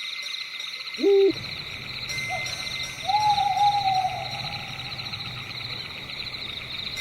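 Owl hooting over a steady, high, fast-pulsing insect chorus: a short loud hoot about a second in, then a longer drawn-out call from about three to four seconds.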